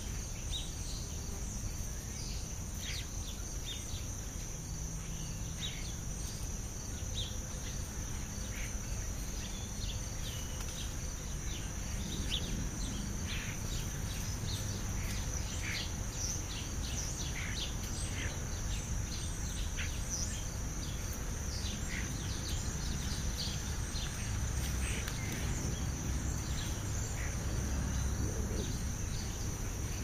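Steady high-pitched insect chorus, with many short bird chirps scattered through it over a low background rumble.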